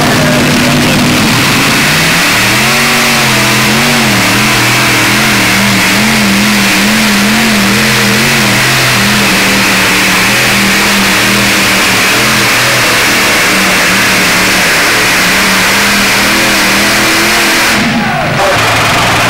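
A modified pulling tractor's multiple supercharged engines running very loud and hard, the engine note wavering up and down in pitch, then cutting back briefly near the end.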